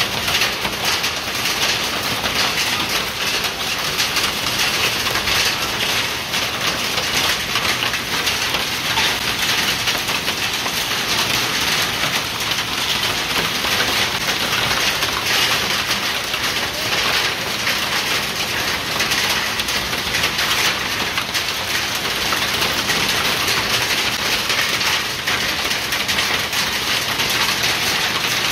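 Heavy rain mixed with hail falling on interlocking concrete paving stones: a steady, dense patter of countless small impacts.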